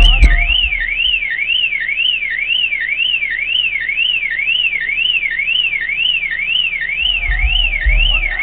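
Suzuki Vitara car alarm siren wailing, its tone sweeping up and down about twice a second, set off by the bass from an 18-inch subwoofer. A short thump comes at the start, and low bass thuds return near the end.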